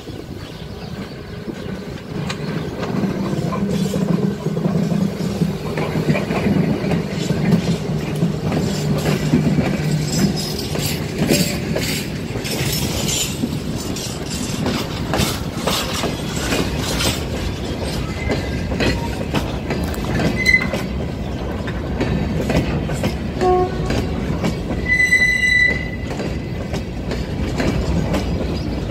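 An electric freight locomotive passes close with a low hum, followed by a train of open freight wagons rolling by with the rhythmic clickety-clack of wheels over rail joints. A brief high-pitched squeal is heard near the end.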